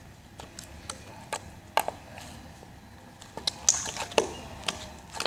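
Stiff, freezer-chilled slime being squeezed and pulled in the hands, giving irregular sharp clicks and small pops that come thicker about three and a half seconds in.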